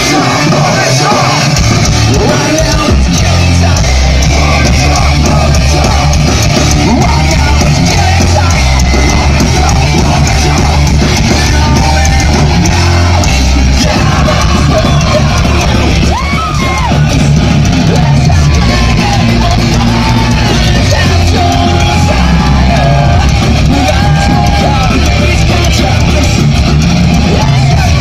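Heavy metal band playing live at full volume through a festival PA: distorted electric guitars and drums with sung and shouted vocals.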